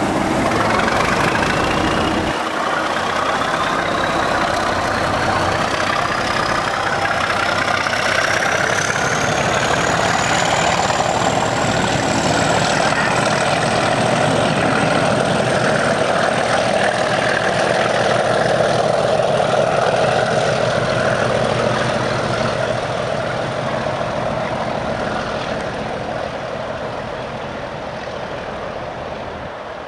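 English Electric Class 37 diesel locomotive working hard as it hauls a passenger train away. Its turbocharger whistle rises steadily in pitch over the first fifteen seconds or so and then holds, over the steady engine note, and the sound fades near the end as the train draws off.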